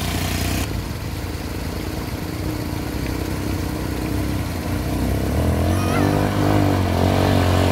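ATV engine running as the quad bike drives through a shallow river, with water churning around its wheels. The engine grows louder from about five seconds in as the bike comes closer.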